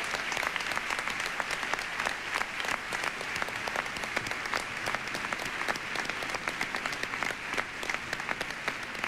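An audience applauding steadily: the dense, even patter of many hands clapping at once.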